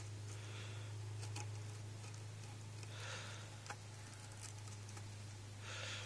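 Faint rustling and scraping in three short bursts as stranded copper wire is worked out of a cut-open welding cable, with a few light clicks, over a steady low hum.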